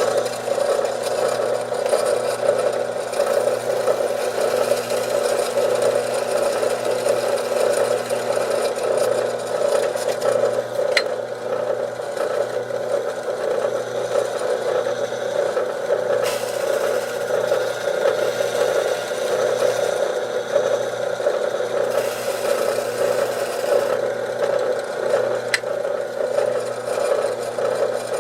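Small electric power tool running steadily as it cuts away part of a plastic guitar pickguard.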